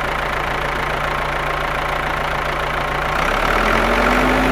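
Tractor engine running steadily; about three seconds in it gets a little louder, with a deeper hum and a higher steady tone coming in.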